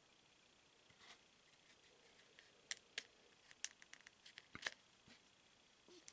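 Faint clicks and snaps of glossy trading cards being handled and peeled apart where they stick together, a run of sharp ticks about three to five seconds in.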